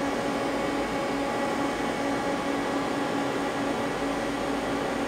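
Steady machine hum from a powered-up but idle Mazak CNC lathe, with a constant low tone and its overtones over an even hiss; the machine is not cutting.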